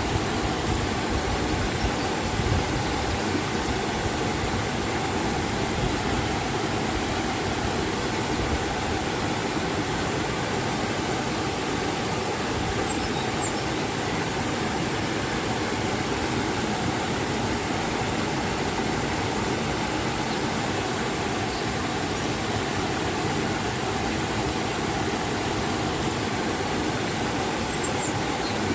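River and waterfall: flowing and falling water making a steady, unchanging rush.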